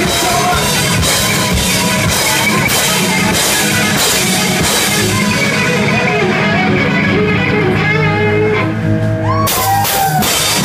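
A live rock band playing, with electric guitar and a drum kit. The drums and cymbals drop out about six seconds in, leaving held guitar notes, then come crashing back in near the end.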